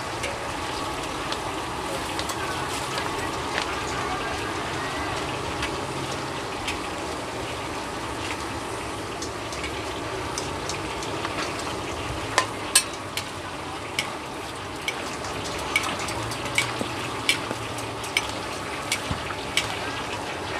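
Vegetables and pork skin sizzling in a large aluminium wok as a long metal spatula stirs them, a steady frying hiss. Sharp clanks of metal utensils against the pan come several times in the second half.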